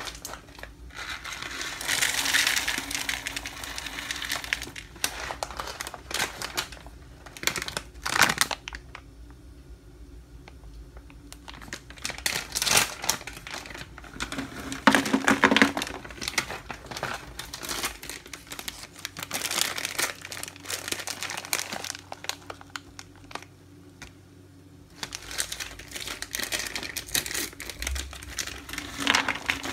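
Plastic snack packets crinkling and rustling as they are handled and emptied, with nuts and seeds pouring into a plastic jar, in several spells separated by quieter pauses.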